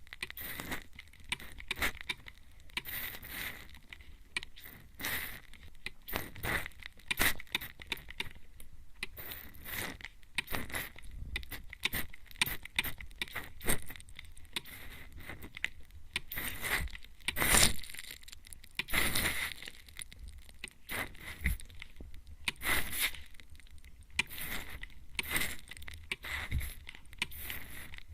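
Hand-pumped spray bottle misting close to the microphone: an irregular run of short hissing sprays, several a second at times, with small clicks of the trigger.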